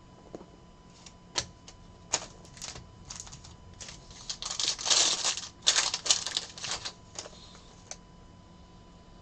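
Trading cards and foil packs being handled at a table: a run of light clicks and taps, then a denser patch of rustling and sliding around the middle, as cards are flipped through.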